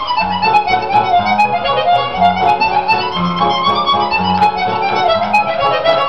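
Harmonica music: a melody played over low bass notes that change every half second or so.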